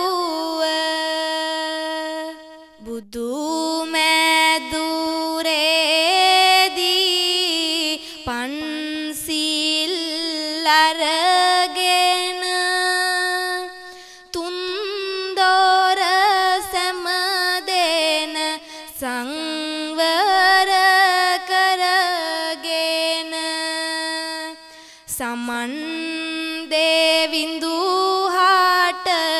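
A solo voice sings a Sinhala kavi verse in the traditional chanted style. It holds long notes that waver, with short breaks between lines.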